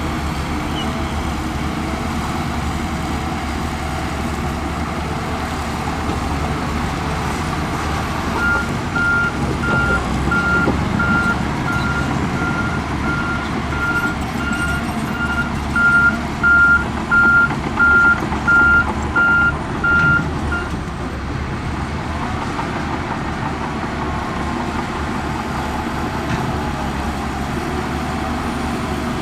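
A heavy diesel construction machine's engine runs steadily. From about 8 seconds in to about 21 seconds, its reversing alarm beeps a little more than once a second, getting louder before it stops: the machine is backing up.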